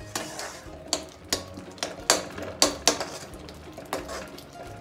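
Metal slotted spatula knocking and scraping against a metal kadhai while stirring thick masala: about ten sharp, irregularly spaced clicks.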